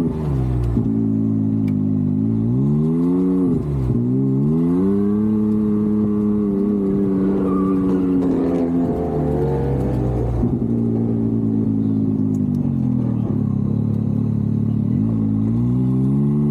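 Can-Am Maverick X3's turbocharged three-cylinder engine at full effort on an autocross run, its note rising and falling, with sharp drops in revs a few times.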